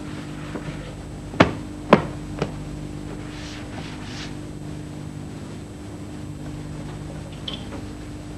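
Two sharp knocks about half a second apart, then a softer third, over a steady low hum.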